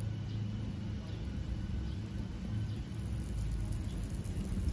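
Steady low rumble of outdoor background noise, with no distinct sharp sounds above it.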